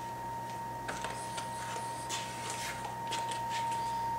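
Faint rustles and small clicks of a paper card being handled, over a steady high-pitched whine and a low hum.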